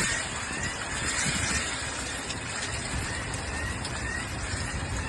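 Steady rushing noise of a heavy rainstorm, rain and wind pouring down without a break.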